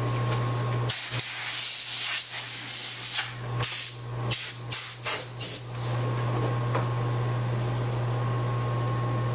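Compressed air blowing glass shards off the iPad frame: one long hiss of about two seconds, then about five short blasts. A steady low hum runs underneath.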